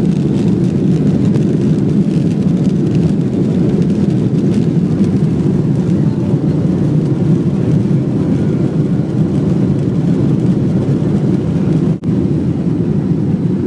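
Boeing 747 jet engines at takeoff power heard from inside the cabin: a loud, steady, deep rumble of engines and rushing air as the airliner takes off. A brief dropout breaks it near the end.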